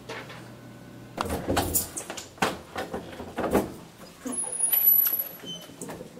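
A door being unlocked and opened: a run of knocks and clunks from the latch and handle, loudest about five seconds in, with a few short high tones.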